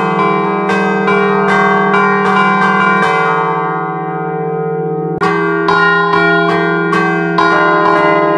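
A three-bell bronze church peal in E-flat, cast by De Poli in 1947, played as a scampanotada: the clappers are pulled by chain against the bells while they hang still, in a quick pattern of about three strikes a second. The strikes pause about three seconds in while the bells ring on, then start again about five seconds in.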